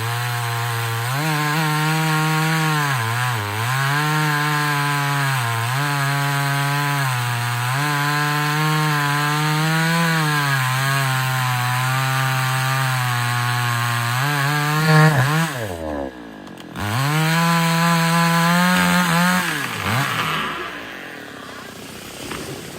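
Two-stroke chainsaw running at high revs while cutting through wood, its pitch dipping every couple of seconds as the chain bogs in the cut. About fifteen seconds in it revs up, drops away almost to idle, then revs again for a few seconds before winding down and going quieter near the end.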